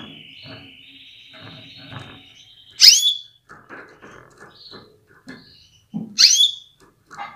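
Female canary calling: two loud, sharp calls about three seconds apart, each sweeping down from a high pitch into a short held note, with a thin steady whistled note over the first few seconds. This is the female's call that stirs male canaries to sing.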